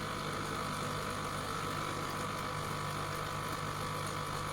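Electric citrus juicer's motor running steadily, spinning the reamer as citrus fruit is pressed onto it.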